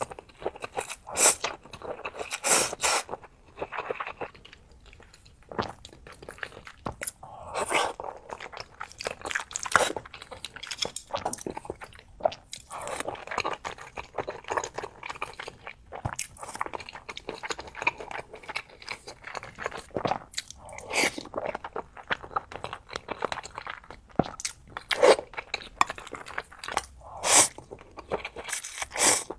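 Close-miked eating: a person chewing and biting food, with irregular crunchy, wet mouth sounds.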